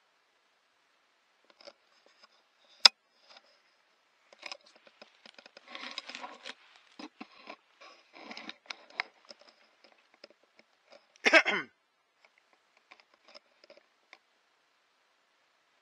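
Scattered rustling, crackling and clicks, like movement through dry leaf litter and brush, with one sharp click about three seconds in. There is a denser patch of rustling in the middle and a loud, short rasping burst about eleven seconds in.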